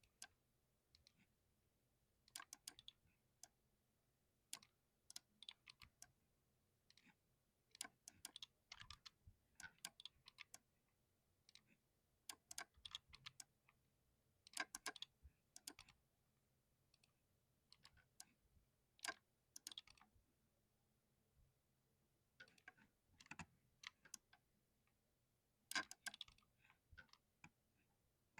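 Clicky button switches on an ergonomic TourBox controller being pressed. The sharp clicks come in irregular clusters with short quiet gaps between them.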